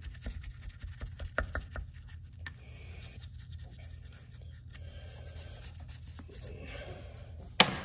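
Toothbrush scrubbing the foamy metal rim of a Craftsman lawn mower front wheel: a run of short scratchy strokes and light taps, with one sharp click near the end.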